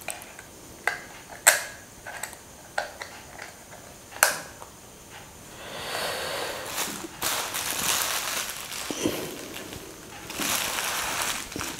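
Sharp plastic clicks as a snap-on front lens cap is pressed onto a camera lens and the lens is handled, the loudest about a second and a half in and another near four seconds. Then a plastic bag crinkles for a few seconds, and again briefly near the end.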